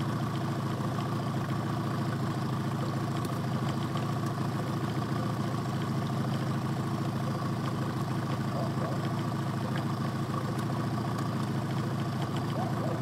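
Small Yamaha two-stroke outboard motor running steadily at low throttle on a jon boat.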